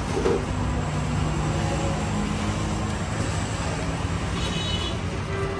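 A steady low rumble of background noise, with faint brief tones over it.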